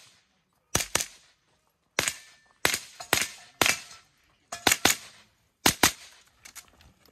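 A .22 rimfire mini rifle firing a rapid string of shots, mostly in quick double taps at targets. About a dozen sharp cracks come in clusters, and the firing stops about six seconds in.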